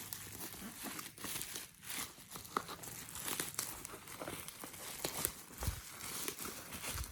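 Keyboard packaging being handled and unwrapped: irregular crinkling and rustling with small crackles and tearing sounds.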